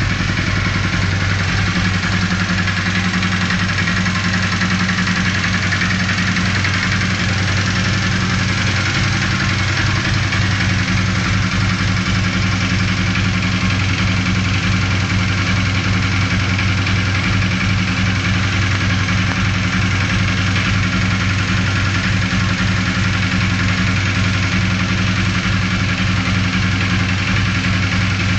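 Honda CB450 air-cooled parallel-twin engine idling steadily. This is the engine whose strange noise the owner is trying to find.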